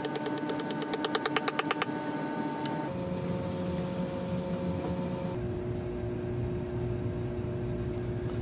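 Benchtop milling machine's motor humming steadily. A fast, even run of sharp clicks, about eight a second, lasts the first two seconds, with one more click a little later; the hum shifts in pitch twice.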